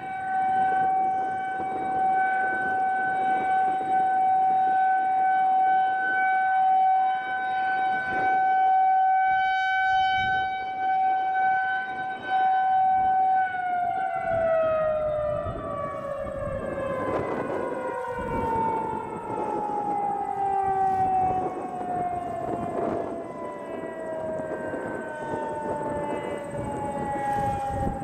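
Federal Signal 2001-SRNB rotating electromechanical siren sounding a steady tone, its loudness swelling and fading as the horn turns. About halfway through it is shut off and winds down, the pitch falling slowly and steadily: the end of the three-minute steady-tone test.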